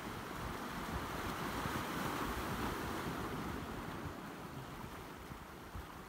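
Sea waves washing and breaking over shoreline rocks: a steady surf wash that swells over the first few seconds and then eases. Wind rumbles on the microphone underneath.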